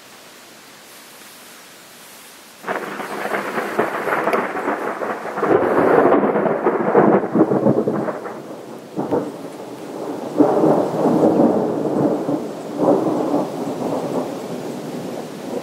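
Thunder: a sudden loud clap about two and a half seconds in, then a rolling rumble that swells again several times and slowly fades, over a steady hiss.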